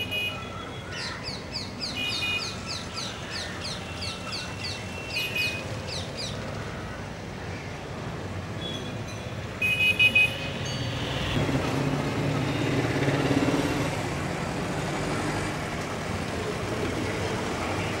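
Outdoor ambience: small birds chirping in quick falling notes, a few a second, with a few brief high calls. About eleven seconds in, the low rumble of a passing motor vehicle swells and then settles into a steady traffic hum.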